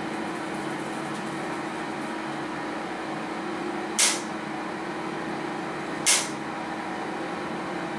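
Otis scenic elevator cab travelling slowly upward: a steady hum with a few held tones. Two brief high hisses break in, about four and six seconds in.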